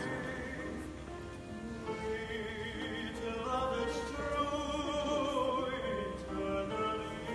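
A young male singer sings a classical song with marked vibrato, accompanied by an upright piano.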